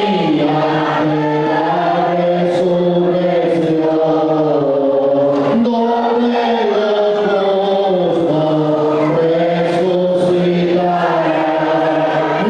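Choir of voices singing slow, sustained notes, the chord shifting every few seconds.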